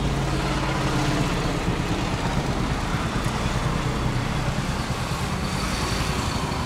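Road traffic: engines of passing vehicles running over a steady road noise.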